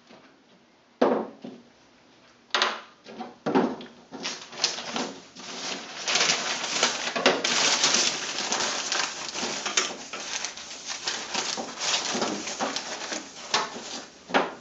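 Enamel tray being wiped out by hand with a crumpled towel: a few separate knocks, then from about four seconds in a dense run of rubbing and scrubbing strokes against the enamel.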